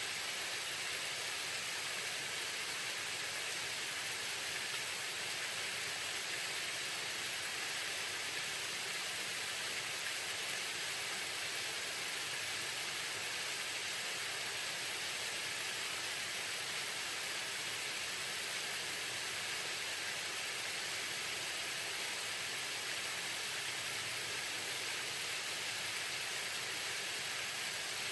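Waterfall: the steady rushing of falling water.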